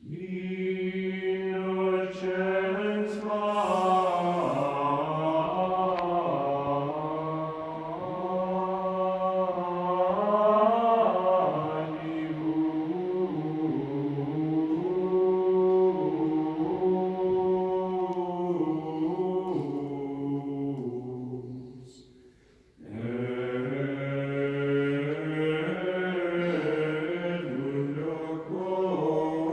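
Gregorian chant sung in Latin, with slow, long-held melismatic notes. It breaks off briefly about three-quarters of the way through, then resumes.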